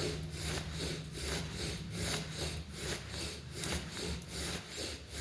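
Forceful, rapid breathing in and out through the nose in bhastrika pranayama (bellows breath), a quick even rhythm of noisy breaths, several a second.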